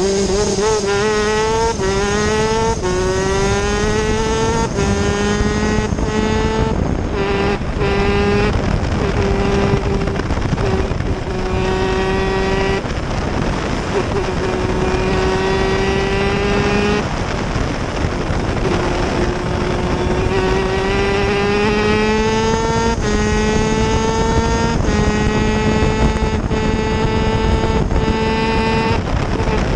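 Superkart's two-stroke engine at racing speed, its pitch climbing through each gear with a short break at every upshift. A little over halfway through the revs drop off, then climb through the gears again.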